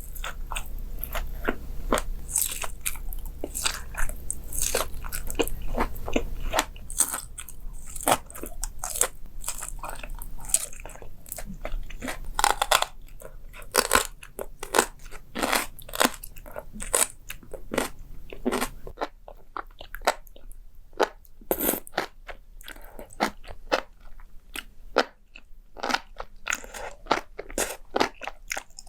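Close-miked mukbang eating sounds: crunchy food being bitten and chewed, a dense run of sharp crunches and crackles, thinning out somewhat in the second half.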